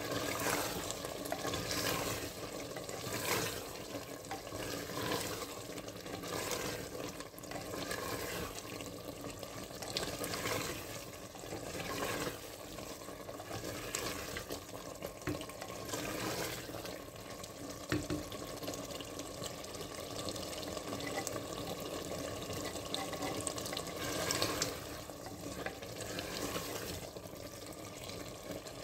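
Chicken korma sizzling and bubbling in a clay matka while a spatula stirs it, scraping and slapping through the thick curry in repeated strokes every second or two.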